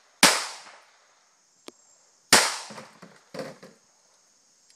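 Two pistol shots about two seconds apart, each followed by a fading echo, with a faint click between them and a smaller, quieter burst about a second after the second shot.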